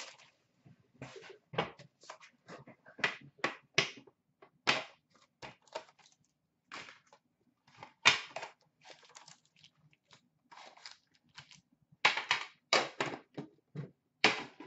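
Foil-wrapped hockey card packs rustling and clattering as they are handled, taken out of a tin and set down on a glass counter: a string of short, irregular crinkles and taps with brief pauses between.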